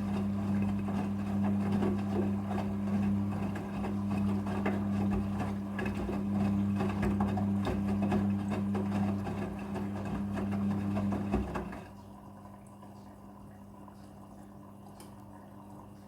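Front-loading washing machine's drain pump running with a steady hum while water gurgles and splashes through it; it cuts off about twelve seconds in, leaving a faint hum.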